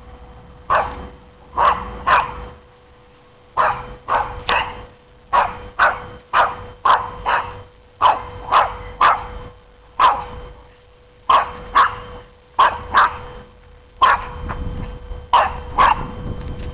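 Dog barking in play, about two dozen short barks in quick pairs and triples.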